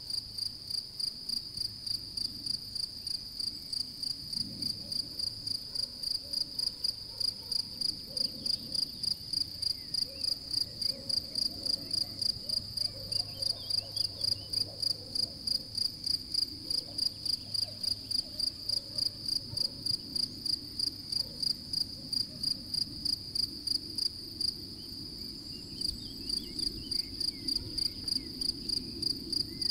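European field cricket (Gryllus campestris) singing: a high, even chirp repeated about three times a second, pausing briefly once near the end.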